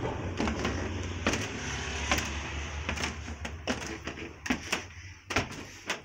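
Footsteps going up wooden stairs: a series of irregular knocks, roughly one every half second, over a low hum that fades out about halfway through.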